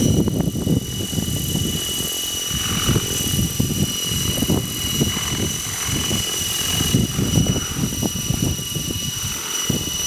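Thunder Tiger Titan X50 radio-controlled helicopter hovering: a steady high whine from its rotor drive, over irregular rumbling gusts of strong wind on the microphone.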